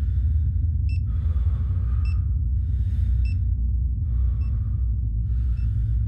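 A steady low rumbling drone under a person's heavy breathing, with breaths coming about once a second. Faint short high beeps sound now and then.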